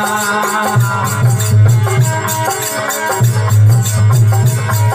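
Instrumental break in a folk-style devotional bhajan: a melody line over held bass notes, driven by a quick, even percussion and shaker rhythm.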